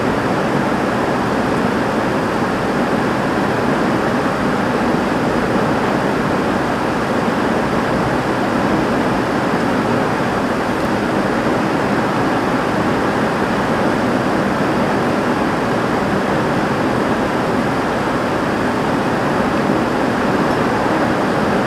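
Heavy rain falling steadily on a roof, with water pouring off the roof, making a dense, even rushing noise with no breaks.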